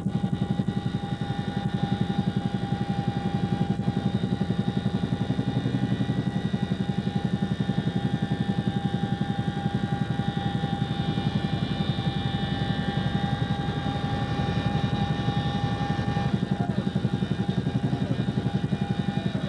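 CH-47 Chinook helicopter cabin noise in flight with the rear ramp open: the rapid, even beat of the tandem rotors under a steady high transmission whine.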